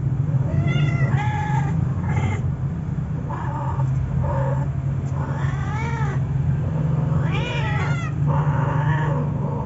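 Cats yowling while mating: a string of about eight drawn-out, wavering caterwauls, several arching up and down in pitch, over a steady low hum.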